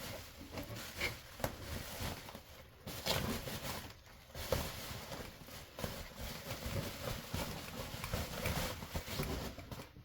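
Irregular light knocks, clicks and rustles of hands working on a refrigerator, handling its parts and tools.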